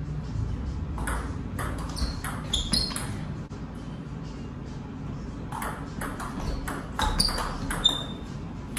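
Table tennis rallies: the ball clicking sharply off the bats and the table in quick back-and-forth exchanges, one burst of play about a second to three seconds in and another from about five and a half to eight seconds, with some hits giving a brief high ping.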